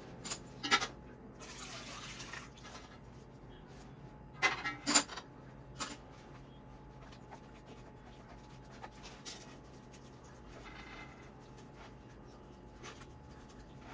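Chicken stock being strained through a sieve: a brief pour of liquid about a second and a half in, with scattered clinks and knocks of utensils as the solids are pressed, the loudest a pair about five seconds in.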